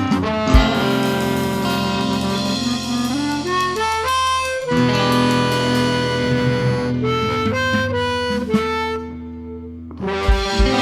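Blues band playing an instrumental passage, with a lead instrument holding long notes over the band. The music thins out about nine seconds in, and a steady pulsing low beat starts near the end.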